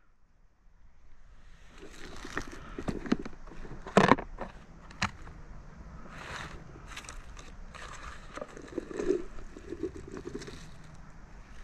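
Handling of a plastic food box and plastic jar: sharp plastic clicks about four and five seconds in as the box's clip lid comes off, then rustling and soft knocks as chanterelle mushrooms are shaken out of the jar onto dry leaves and pine needles.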